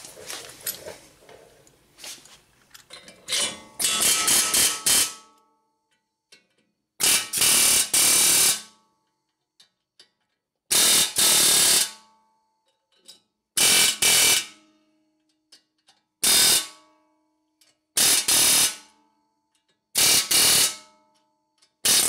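Pneumatic air hammer with a pointed tip rattling in about seven short bursts with pauses between, the first starting about three seconds in. It is hammering on sacrificial bolts to knock out a wheel bearing hub assembly held in by rust.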